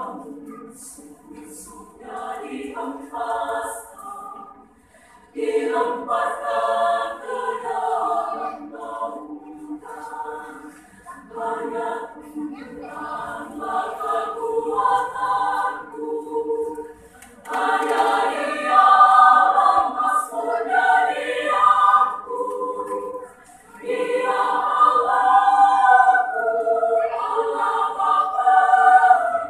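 Women's choir singing a hymn in parts, unaccompanied. Phrases are broken by brief pauses, and the singing grows louder in the second half.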